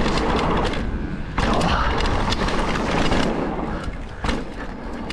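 Electric mountain bike rolling fast down a dirt trail: continuous tyre and riding noise, with knocks and rattles from the bike over bumps. The noise jumps up about a second and a half in, and there is a sharp knock about four seconds in.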